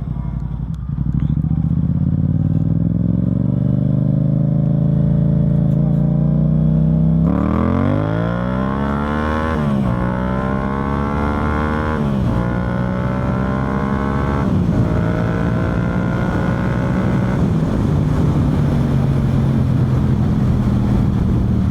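2021 Yamaha MT-07's 689 cc parallel-twin engine through an Akrapovic full exhaust with the dB killer removed. It pulls gently for several seconds, then accelerates harder through three upshifts, the pitch climbing and dropping at each shift, and settles into a steady cruise that eases lower near the end.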